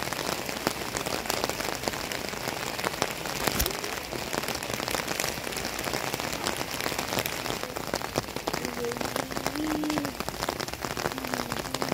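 A rain shower falling on a tent: a steady patter of many separate drops hitting the fabric.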